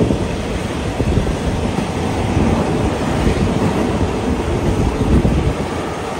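Wind buffeting the microphone as it is held out of a moving train's window: a heavy low rumble over the train's running noise. It sets in suddenly and eases near the end.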